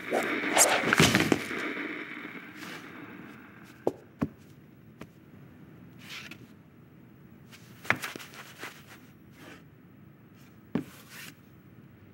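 Sound effects only: a loud, noisy sound fades away over the first couple of seconds, then scattered light knocks and taps come every second or two.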